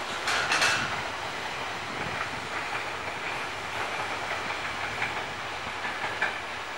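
Chu-Kuang Express passenger train running through a station yard, heard from on board: steady wheel and rail noise, with a burst of sharp clattering over the points in the first second and a few lighter clicks later.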